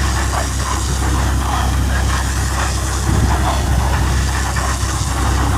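A farm tractor engine running steadily with a deep, even drone.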